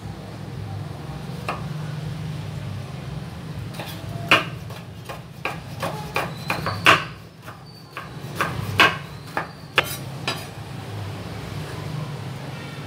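Chef's knife chopping soaked wood ear mushrooms on a wooden cutting board: a run of irregular sharp knocks of the blade hitting the board, mostly between about four and ten seconds in, over a steady low hum.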